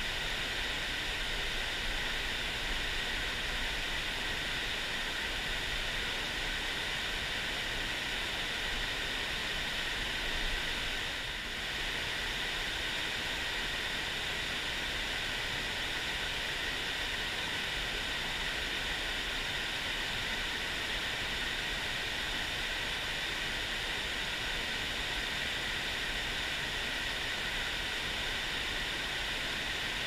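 Mountain stream rushing steadily, an even hiss of running water with no breaks.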